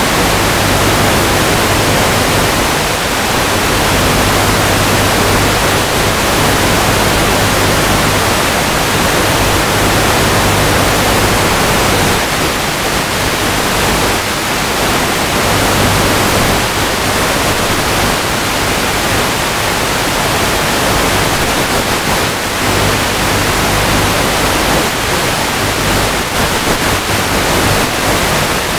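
Steady loud hiss of radio static from an analog FPV video receiver's audio, with a low hum underneath that fades in and out.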